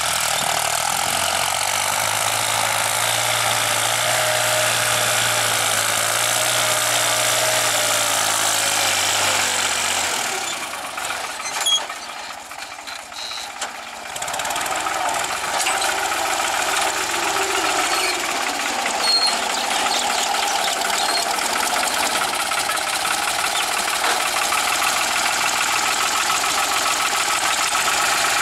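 New Holland tractor's diesel engine running steadily as it pulls a tine cultivator through the soil. About ten seconds in the sound drops away for a few seconds, then the steady running returns.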